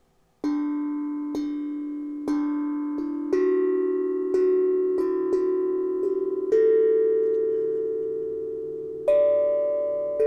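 Harmonic Star 11-note steel tongue drum in D major, struck with mallets, playing a slow run of single notes that ring on and overlap as they fade, the pitch mostly stepping upward. It begins about half a second in, with a longer pause before a higher note near the end.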